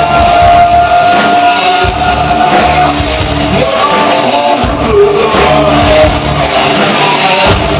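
Live rock band playing loud: electric guitars, bass guitar and drum kit, with a male lead singer singing into the microphone.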